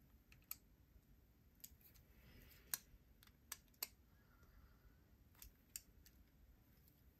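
Faint, scattered small clicks, about seven in all, of a precision screwdriver bit working a screw on a folding pocket knife.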